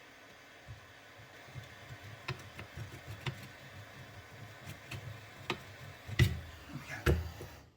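Light metal knocks and clicks from small parts of a toy steam engine being worked loose by hand, irregular and growing busier. Two louder knocks come about six and seven seconds in.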